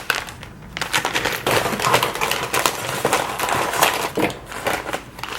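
Plastic snack packaging crinkling and crackling as it is handled, in an irregular run of crackles.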